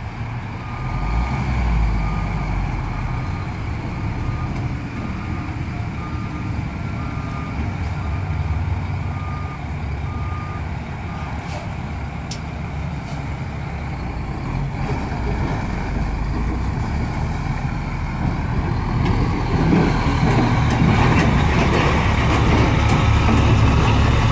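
Diesel engine of a plow-equipped dump truck running, with its reversing alarm beeping roughly once a second for the first ten seconds or so. The engine grows louder near the end.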